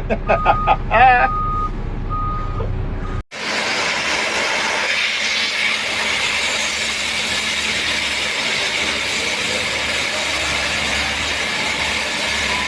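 A construction vehicle's reversing alarm beeping at one pitch, with a voice over it. After a sudden cut about three seconds in comes a steady, noisy heavy-vehicle engine and machinery sound.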